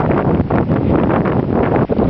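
Wind blowing across the camera microphone: loud, uneven low noise with crackling flutter.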